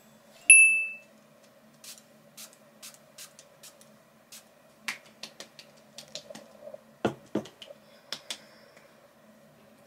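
A single bright chime rings out about half a second in and is the loudest sound. Then come a run of short, light clicks from a facial mist serum spray bottle, followed by soft slaps of hands patting the face, two louder ones about seven seconds in, over a faint steady hum.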